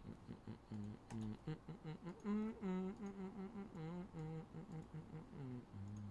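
A man humming a tune to himself, a string of short held notes that step up and down in pitch.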